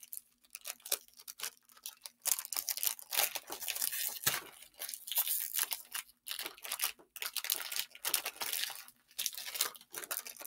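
Plastic wrapping on a small trading-card binder being picked at and torn open by hand, crinkling and tearing in irregular bursts as it resists.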